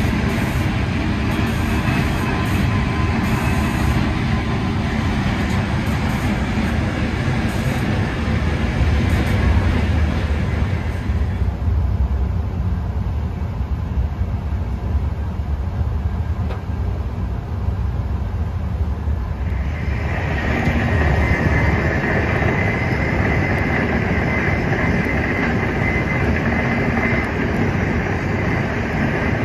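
Running noise of a moving passenger train: a steady low rumble of wheels on the track with a hiss over it. The hiss fades out for several seconds after about a third of the way in and comes back about two-thirds of the way through.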